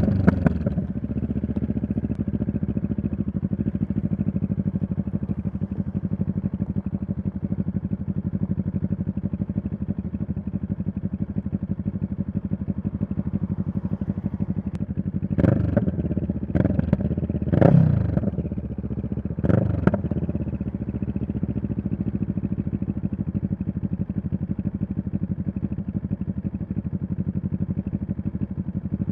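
2023 CFMoto 650NK's parallel-twin engine idling steadily after a slowdown, with an even low pulse. About halfway through, the throttle is blipped four times in quick succession, each a short rise and fall in revs, before it settles back to idle.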